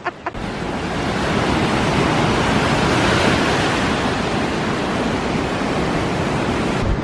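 Ocean surf washing in: a steady, even rush of noise that cuts in abruptly at the start and swells a little midway.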